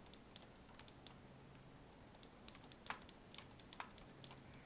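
Faint, irregular clicks of computer keyboard keys being pressed over a low hiss.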